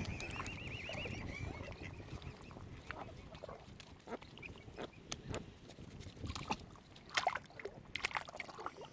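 Waterfowl calling: a run of short, harsh calls, loudest about seven and eight seconds in, with a high wavering peep over the first second or so.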